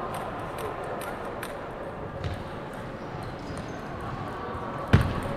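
Table tennis ball giving faint scattered clicks between points over the steady noise of a large hall, then a sharp loud thud about five seconds in as the serve starts the next point.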